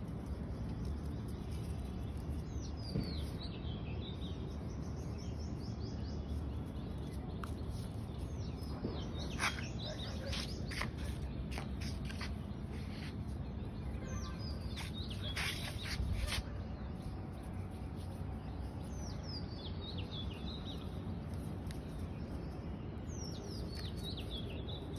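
A bird repeating a short, high, falling song phrase about every five seconds, over a steady low background noise, with a few sharp clicks in the middle.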